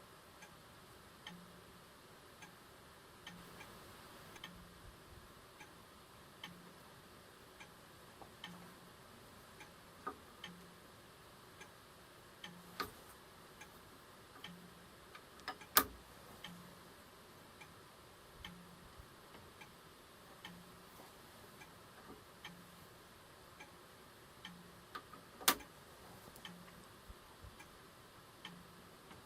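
Faint, even ticking of the restored 1958 Tudor Prince mechanical wristwatch running, broken by a few louder sharp clicks.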